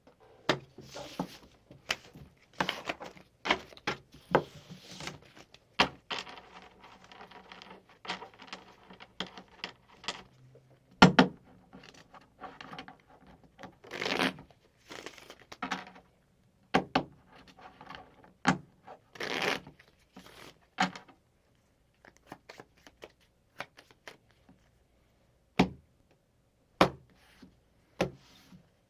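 Playing cards being shuffled and dealt: irregular sharp papery snaps and flicks, with a few seconds of continuous rustling about six seconds in, and sparser single snaps of cards laid down toward the end.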